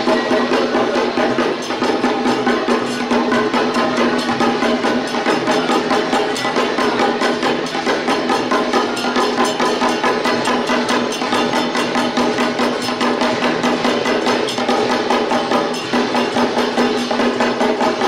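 Procession music with a fast, steady percussion beat and a held tone underneath, going on without a break.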